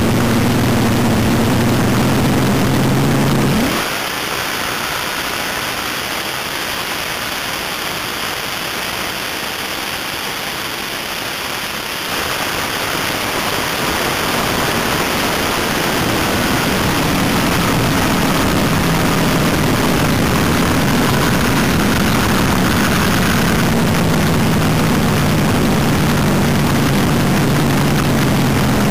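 Open-header V8 engine of a drag racing car running at low speed, with a steady deep note. About four seconds in the engine note drops away under a rushing hiss. It comes back about twelve seconds in and runs steadily again.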